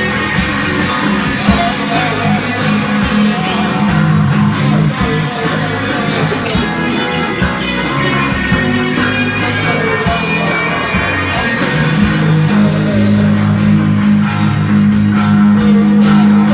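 Live psychedelic rock band playing, with electric guitar, bass and drums.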